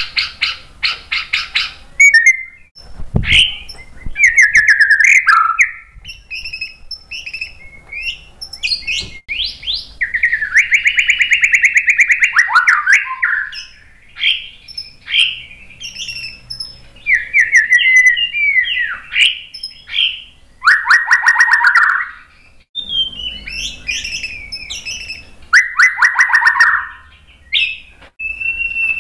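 White-rumped shama singing a long, varied song: clear whistled notes, sweeping slurs, buzzy rattles and rapid chattering runs in quick succession with short pauses. A single low thump sounds about three seconds in.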